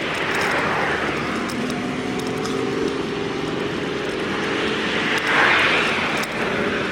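Road traffic: vehicles passing by, one about a second in and a louder one about five and a half seconds in, over a steady engine hum.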